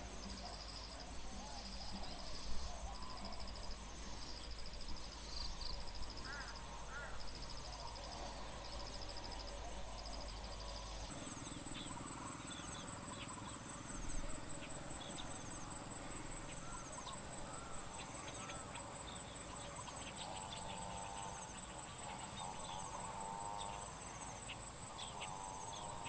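A chorus of field insects: one keeps up a steady, very high continuous trill while another gives a pulsing chirp that repeats about once a second. Fainter lower-pitched calls come through now and then in the background.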